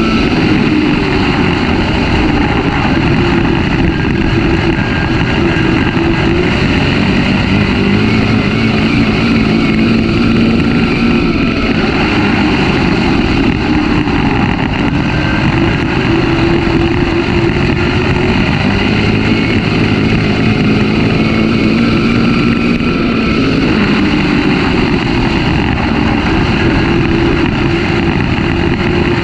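Dirt-track race car engine running hard at racing speed, heard from inside the cockpit. It is a loud, steady drone whose pitch swells up and drops back in long cycles about twelve seconds apart.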